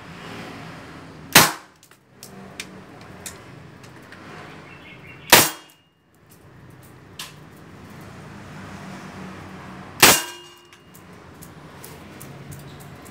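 CO2-powered Wingun 321 non-blowback 6 mm airsoft pistol firing three shots, about four to five seconds apart, each a sharp crack. The second and third shots are followed by a brief metallic ring.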